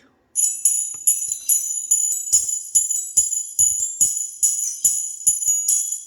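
Music played through Soundstream TWT.5 1-inch PEI dome tweeters: only the treble comes through, a thin, jingling high end pulsing to a steady beat about twice a second, starting just after the beginning.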